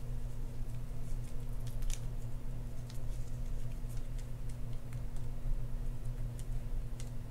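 Faint, scattered small clicks and ticks of small metal fishing-reel parts being handled and dabbed with grease by a thin applicator, over a steady low hum.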